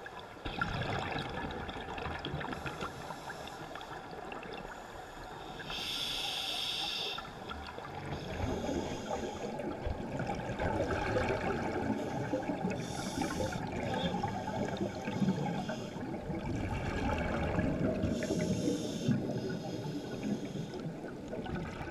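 Scuba diving breathing heard underwater: a muffled, steady bubbling and rumble, with a hissing regulator breath roughly every six seconds.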